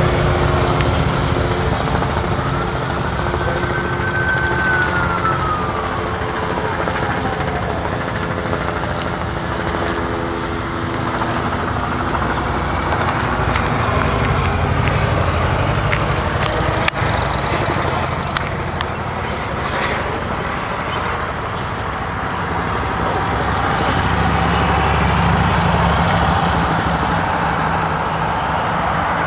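A line of vehicles passing with steady engine and road noise. A few seconds in, a siren rises in a single wail, holds, and falls away.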